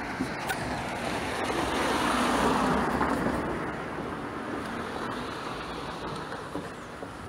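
A car passing along the street, its tyre and engine noise rising to a peak about two and a half seconds in and then fading away.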